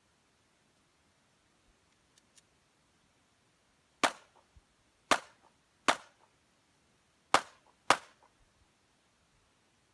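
Five pistol shots fired in an uneven string during a defensive-pistol stage: the first about four seconds in, then two about a second apart, and a final quick pair near the end, each with a short echo. Two faint clicks come about two seconds in.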